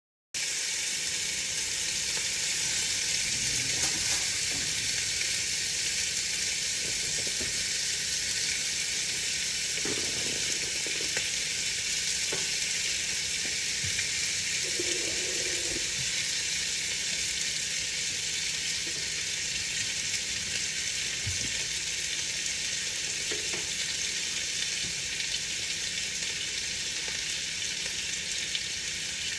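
Steady rain on a window, an even hiss with a few faint scattered drop taps. It cuts in abruptly out of silence about half a second in.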